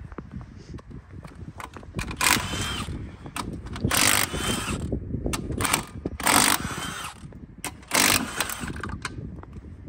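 Milwaukee cordless impact wrench hammering lug nuts onto the wheels in four short bursts about two seconds apart, with clicks and clanks of the work in between.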